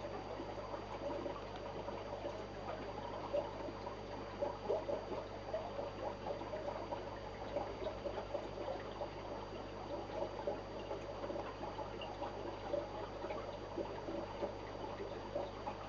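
Aquarium water trickling and bubbling steadily, with many small irregular splashes, over a steady hum from the tank's equipment.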